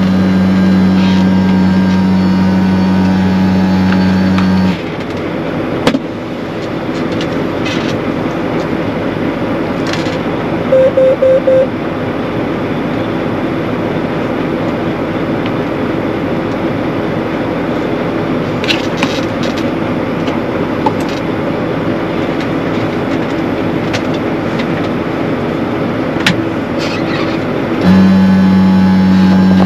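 Harvest machinery engine running steadily. A loud, steady low tone comes on for about five seconds at the start and again near the end, switching on and off abruptly. Four quick beeps sound about eleven seconds in.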